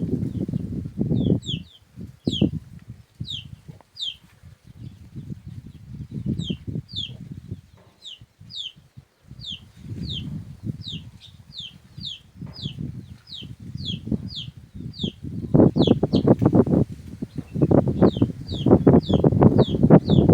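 A small bird repeatedly giving short, high, down-slurred chirps, roughly two a second, over low rustling noise that grows louder in the last few seconds.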